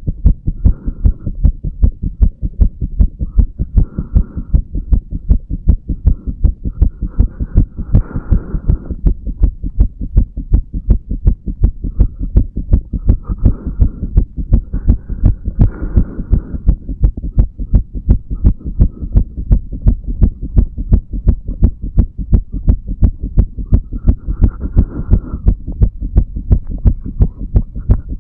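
A man's heartbeat heard over the mitral valve area of the chest: a steady, regular run of low thudding heart sounds.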